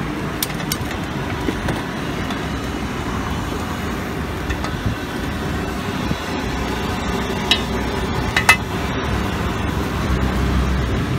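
Steady roadside traffic noise, with a couple of sharp clinks about two-thirds of the way through.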